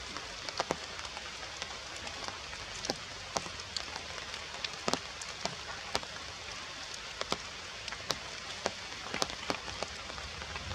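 Rain falling on leaves and branches: a steady hiss with many sharp, irregular drop ticks.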